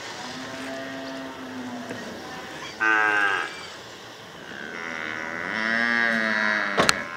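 Cattle mooing: a long low moo, then a short louder, higher call about three seconds in, then another long moo. A sharp click near the end.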